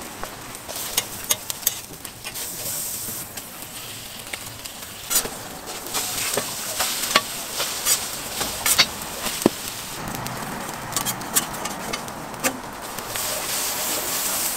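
Egg-and-vegetable omelettes and butter sizzling on a hot flat-top griddle, the hiss swelling at times, with many scattered sharp clicks and taps.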